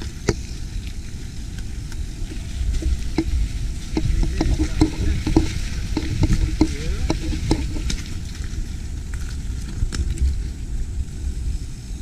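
Mountain bike riding over a rough dirt trail: a continuous low rumble and rattle from the tyres and frame, with frequent sharp knocks and clatters as the bike hits bumps.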